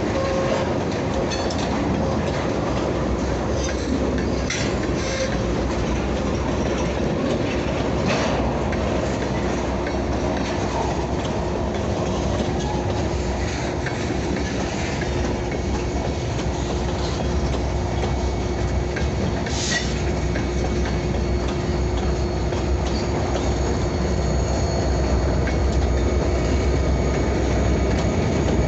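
Diesel switching locomotives running with a steady low engine rumble as railcars roll along the track, with a few sharp clicks from the wheels. A faint high wheel squeal sets in near the end.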